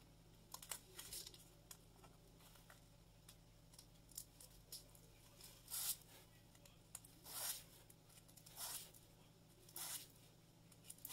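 Faint scratching strokes of folded 120-grit sandpaper drawn by hand along a thin plastic strip, sanding down its thickness. There are about half a dozen short strokes, irregularly spaced, with quiet pauses between them.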